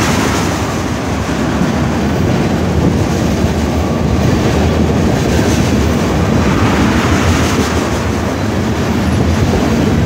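A freight train of tank cars rolling past at close range: a steady, loud rumble of wheels running on the rails.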